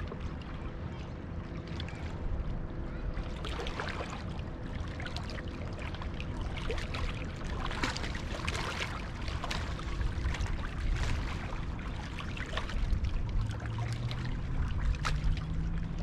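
Small waves lapping and splashing against the rocks at the water's edge, with many short splashy ticks. Under it the steady drone of a motorboat on the water, its pitch rising over the last few seconds.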